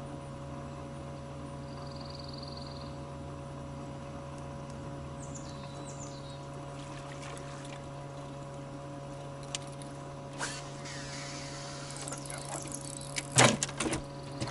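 Electric boat motor humming steadily with a few fixed tones. Near the end come a burst of clattering and one sharp knock.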